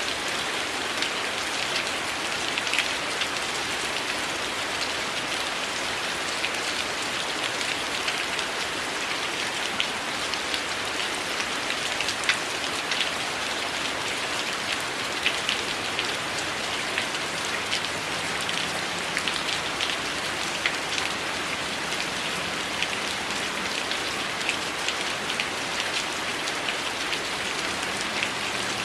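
Steady rain falling, with individual drops landing close by as sharp ticks scattered through it. No thunder is heard.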